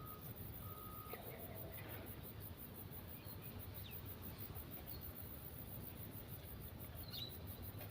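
An insect, cricket-like, calling in a high-pitched, rapid and even pulsing that runs throughout. Near the start a short steady beep sounds, and faint high chirps come near the end.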